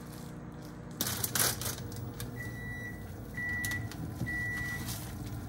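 Three short electronic beeps about a second apart, from an induction cooktop's touch controls, over a low steady hum. A brief rush of noise comes about a second in, just before the beeps.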